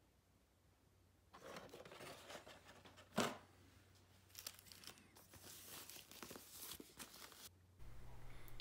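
Plastic packaging crinkling and tearing as it is unwrapped by hand, starting about a second in, with one sharp rip about three seconds in.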